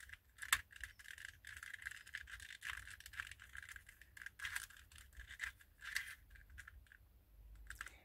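Small cast-resin puzzle pieces clicking and rattling in the hands as the crown parts of a 2x2-based puzzle chess queen are fitted into place: a scattered series of light clicks and taps.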